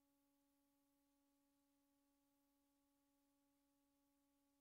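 Near silence: only a very faint, steady hum over faint hiss.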